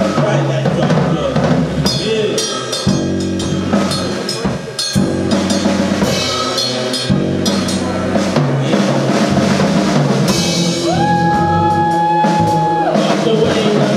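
Live band music: a drum kit struck busily with bass drum, snare and cymbals over sustained low electric bass notes. A steady held tone comes in about eleven seconds in and lasts a couple of seconds.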